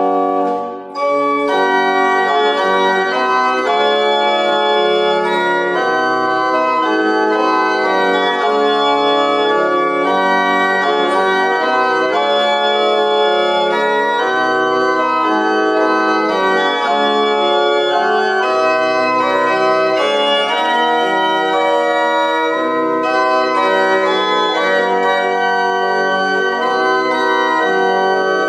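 Organ playing a hymn tune in long held chords, with a brief break about a second in between phrases.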